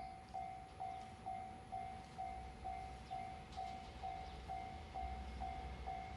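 Japanese railway level-crossing warning bell ringing at about two strokes a second, each stroke a single tone that fades before the next. A low rumble builds near the end.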